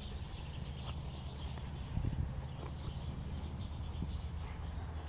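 A large dog and a puppy play-wrestling on grass, heard faintly as soft scuffles with a bump about two seconds in, over a low steady rumble, with faint high chirps in the background.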